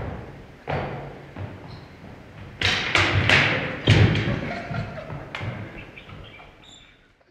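Repeated thumps of a body on a wooden gym floor, loudest in a cluster just before halfway, with the rungs of an agility ladder knocking and clattering as it is dragged across the floor and tangled.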